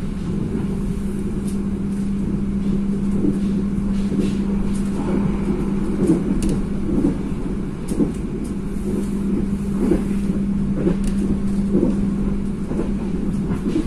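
Passenger train coach running: a steady low rumble with a steady hum, overlaid by irregular knocks and rattles; the hum drops out near the end.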